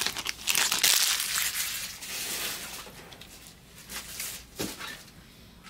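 Foil trading-card pack wrappers being crumpled and crinkled by hand, loudest in the first two seconds and then fading, with a couple of light clicks near the end.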